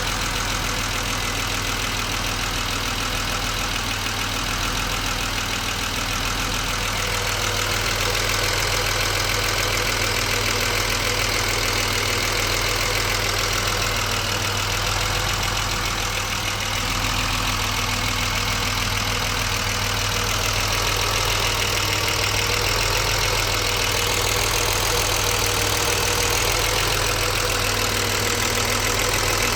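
BMW 635CSi (E24) straight-six engine idling steadily, being checked for a rough idle. It gets slightly louder about eight seconds in.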